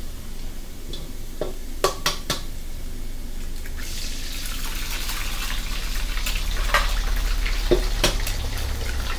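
Eggs being cracked into a hot wok with oil and minced garlic: a few sharp taps, then the oil sizzles loudly as the egg drops in, from about four seconds in, with another pair of taps near the end as the next egg goes in.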